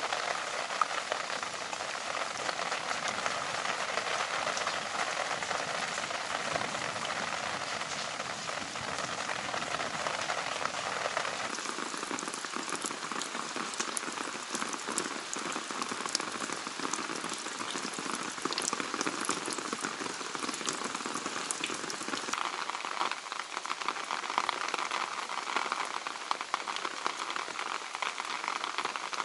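Heavy rain pouring steadily, with many fine drop ticks as it splashes on water and wet ground. The sound of the rain changes twice, about twelve and twenty-two seconds in.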